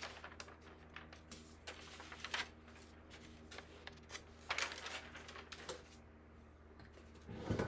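Faint, scattered rustles and light clicks of paper and small objects being handled, with a slightly louder patch about four and a half seconds in and again near the end, over a steady low hum.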